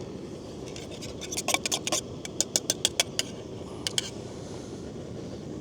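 Camping gas stove burner running with a steady low rush, with a quick series of sharp metallic clicks and taps from about a second in, and two more near the end.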